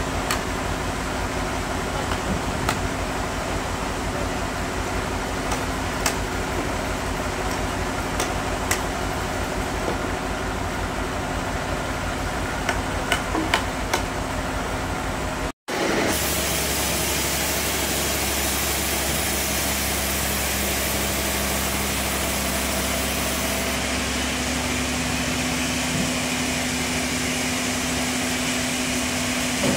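An engine running steadily, with scattered sharp knocks of hammers striking wood and metal wedges. About halfway through the sound cuts, and an engine runs on steadily, with a low steady hum added later on.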